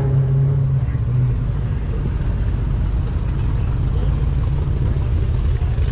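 Car engine running with a steady low rumble, a low hum standing out in the first second or so.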